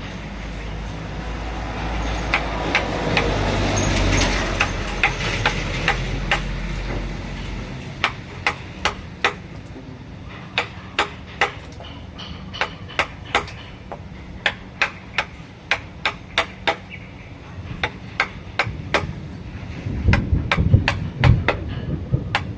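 Mallet striking a wood-carving chisel in a steady run of sharp taps, about two to three a second, as the chisel cuts into wood. A low rumbling noise swells and fades under the taps over the first several seconds.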